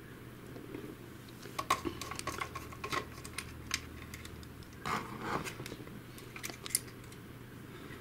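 Scattered light clicks and taps of small plastic parts, wiring and screws being handled inside an opened Mamibot robot vacuum, over a faint steady low hum.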